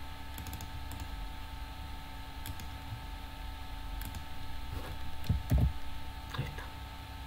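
A few scattered clicks from a computer mouse and keyboard, seconds apart, over a steady background hum, with one louder low thump a little past halfway.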